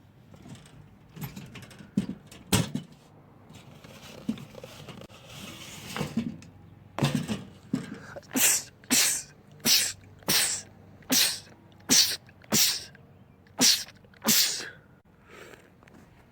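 A man sneezing in a rapid fit: about ten short, loud sneezes in quick succession through the second half, after a few scattered sharp clicks.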